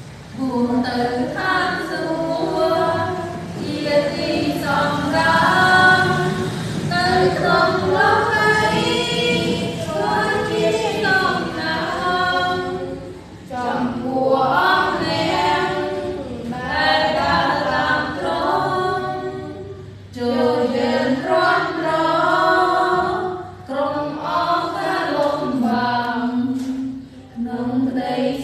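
A group of women and girls singing together without accompaniment, in phrases with short breaks between lines.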